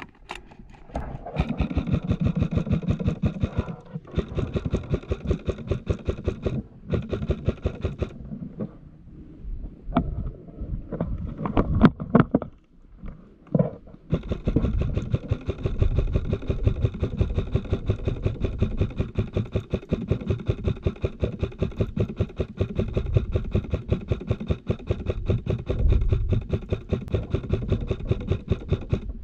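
Modify Xtreme Duty AR-15 airsoft carbine firing on full auto: a fast mechanical rattle over a steady motor whine. It comes in several strings of a few seconds each early on, then a few scattered knocks and clicks, then one long unbroken string through the second half.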